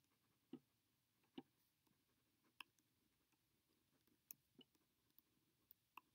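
Near silence broken by a handful of faint, irregular clicks: a pen touching down on paper as a line of words is handwritten.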